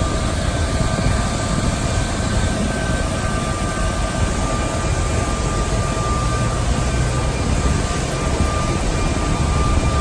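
Airliner jet engines running, heard inside an Airbus A330-200's cabin: a steady rush of noise with a few steady whining tones over a low rumble.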